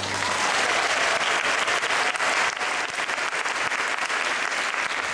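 Audience applauding, dense and steady, as the string orchestra's last note dies away at the very start.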